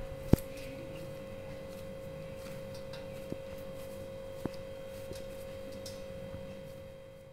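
A steady, even hum on one pitch, with a sharp click about a third of a second in and two faint ticks around three and four and a half seconds in; the hum fades away near the end.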